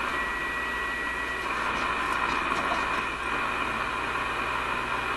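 Steady shortwave static hiss from an RCA A25 vacuum-tube radio's speaker while it is tuned on a shortwave band, with a thin high whistle over it for about the first second and a half.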